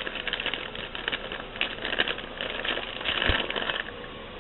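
Rustling and rummaging in a bag of small glass light bulbs: many short crinkles and light clicks, with one dull thump a little past three seconds, then it stops.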